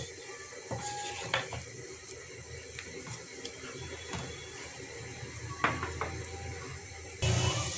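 Wooden spatula stirring a thick chicken curry in a metal pot, with scrapes and knocks against the pot, the sharpest about a second and a half in and again near six seconds. Near the end it cuts suddenly to a louder steady hiss of the curry boiling hard.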